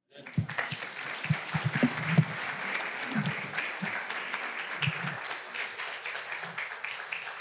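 Congregation applauding, starting just after the talk ends and gradually dying down.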